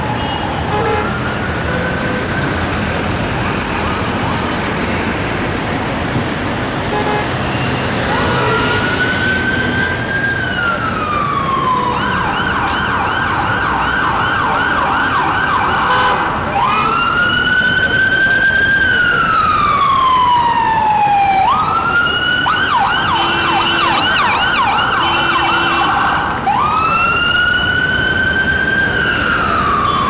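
Emergency-vehicle siren over steady street traffic noise. It is faint at first and gets louder about eight seconds in, with a slow wail rising and falling that twice switches to a fast yelp.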